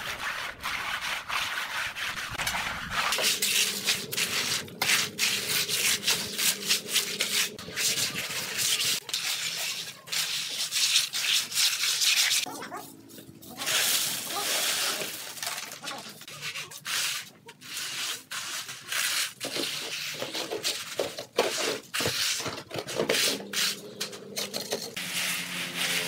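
Hand tools scraping on wet concrete and gravel, many short rough scrapes one after another as the slab is spread and levelled with a trowel and straightedge.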